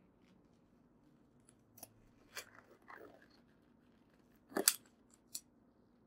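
Gloved hands handling packaging and a cardboard box on a glass-topped table: a few short crinkles and scrapes, the loudest about four and a half seconds in.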